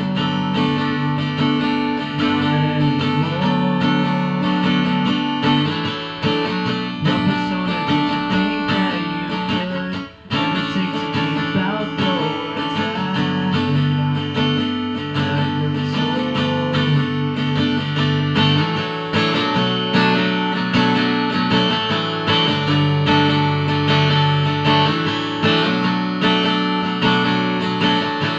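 Acoustic guitar played solo: a continuous instrumental passage of picked and strummed chords, with a short break about ten seconds in.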